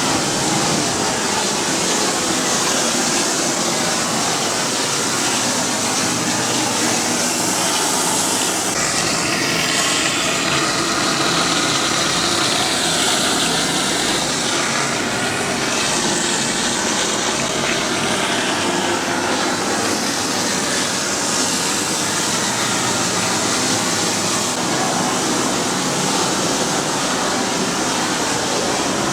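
Steady, loud rush of air driven by a megawatt VOD-40 axial mine ventilation fan.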